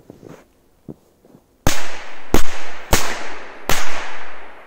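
A Komet Corsair 3 firecracker goes off with four sharp, loud bangs spread over about two seconds. Each bang trails off in a fading echo.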